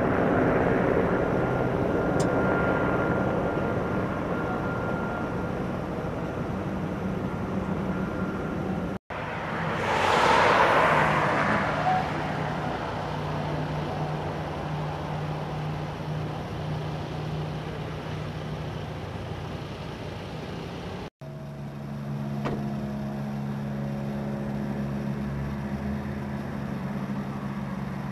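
Road traffic and idling vehicle engines: a steady engine hum, with a car passing close by about ten seconds in, then a lower, steady engine drone in the last few seconds.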